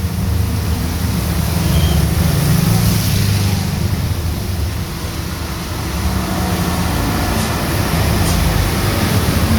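Heavy rain pouring steadily on a street, with a deep rumble of motor traffic passing on the wet road that swells twice.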